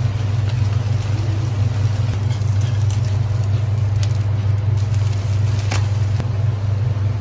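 A steady low hum, with a metal spatula scraping and clinking against a frying pan as an egg-and-bread omelette is flipped; one sharp clink comes about six seconds in.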